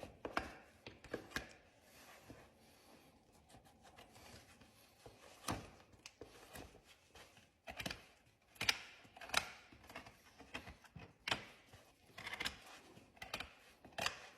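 Hoof trimming tools cutting and scraping a horse's hoof: about a dozen short, sharp cuts and scrapes at an irregular pace, closer together in the second half.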